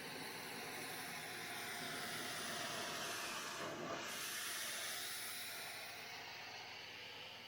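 Pressure washer jet spraying water: a steady hiss that swells a little in the middle and eases off slightly near the end.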